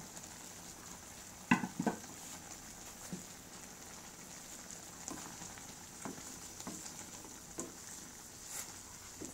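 Chicken adobo simmering in its soy-vinegar sauce in a metal pan, with a steady soft sizzle and bubbling. A couple of sharp knocks about a second and a half in are the loudest sounds, then scattered small pops and taps, with a wooden spatula stirring the pan near the end.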